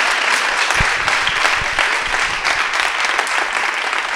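Audience applauding, a dense steady clapping, with a few brief low thumps in the first couple of seconds.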